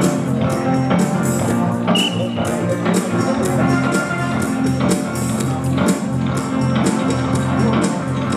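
Freestyle ride music with guitar and a steady beat.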